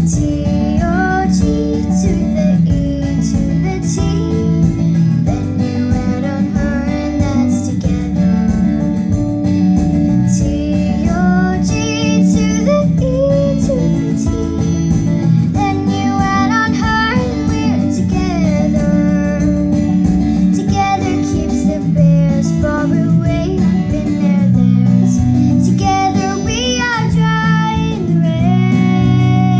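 A young girl singing a pop song over strummed acoustic guitar accompaniment.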